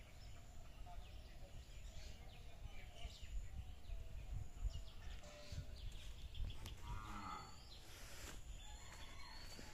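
Rural outdoor ambience: wind rumbling on the microphone, with scattered bird chirps and a short animal call about seven seconds in.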